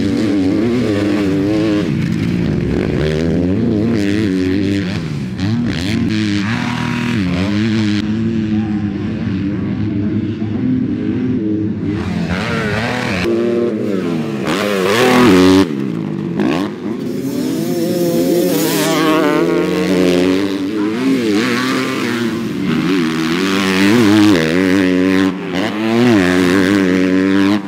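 Kawasaki 250cc four-stroke motocross bike ridden hard round a dirt track, its engine revving up and dropping back again and again through the gears.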